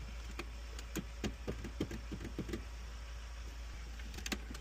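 A steady low hum under scattered light clicks and taps, about two to four a second at irregular spacing.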